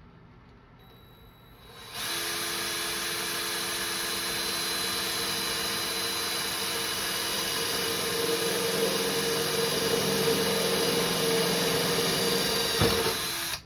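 Power drill with a step bit boring a hole through the toolbox: the drill starts about two seconds in, runs steadily for about eleven seconds and stops suddenly near the end, with a sharp knock just before it stops. The step bit is getting dull, so the hole goes through slower than it should.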